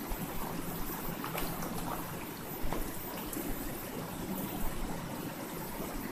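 River water flowing steadily, with a few faint ticks.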